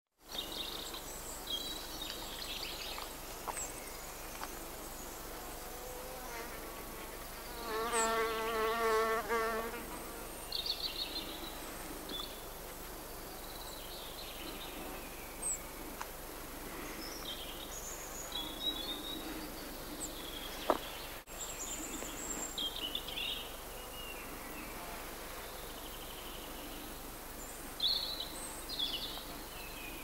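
Several small birds singing and calling, with a flying insect buzzing close by for about two seconds, about eight seconds in.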